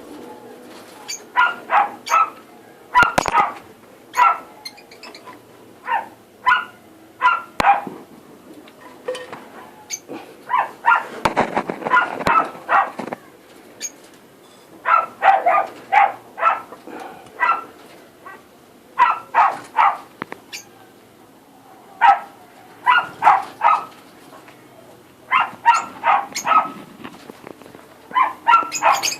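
Short animal calls, repeated in quick clusters of two to four, on and off.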